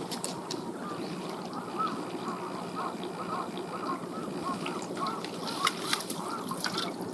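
Birds calling: many short arched calls in quick succession over steady background noise, with a few sharp clicks.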